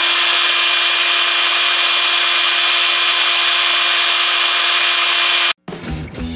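Makita DJN161 18-volt cordless nibbler running free with nothing in its jaws: a steady, even motor whine with a constant pitch. It cuts off abruptly about five and a half seconds in.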